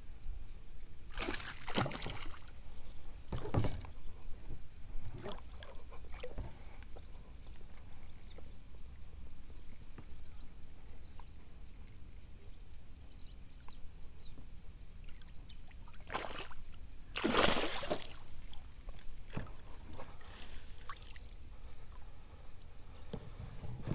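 Water splashing as a hooked fish thrashes at the surface while being played on a spinning rod: a few splashes in the first four seconds, and the loudest and longest about seventeen seconds in.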